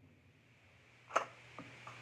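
A second of near silence, then a Mossberg 12-gauge pump-action shotgun being worked between shots: one sharp clack about a second in, followed by two faint clicks.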